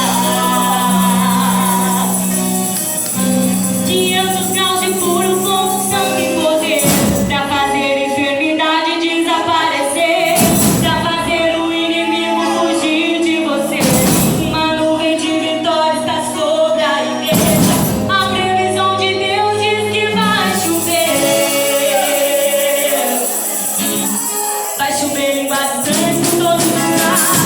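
Gospel worship song with group singing over a percussion band, tambourines jingling throughout. Four loud strikes land about three and a half seconds apart in the middle.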